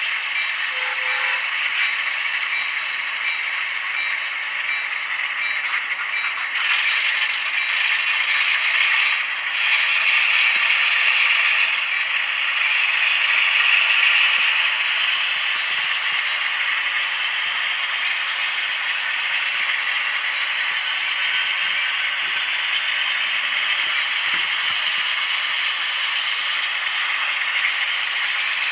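HO scale Atlas Alco RS-11 model diesel locomotive with a TCS WOW sound decoder running with a boxcar in tow: a steady mechanical rattle and clatter from its drive and wheels on the track, mixed with the decoder's diesel engine sound from a small speaker. It is a little louder for several seconds in the first half.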